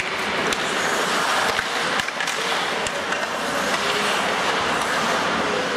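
Ice hockey play on the rink: steady scraping of skates on the ice, with a few sharp clacks of sticks on the puck.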